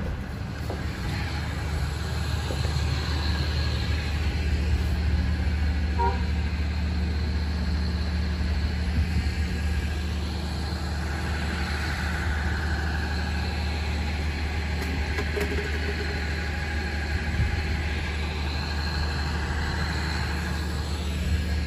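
Steady low droning hum of machinery or traffic under a continuous outdoor background noise, with a brief high chirp about six seconds in.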